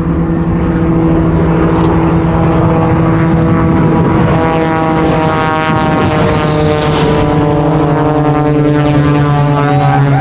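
Two aerobatic propeller planes, an Edge 540 and a Pitts-type biplane, fly low past with their piston engines droning. The engine pitch drops as they pass, about six seconds in. A steady rush of jet noise from the racing jet truck runs underneath.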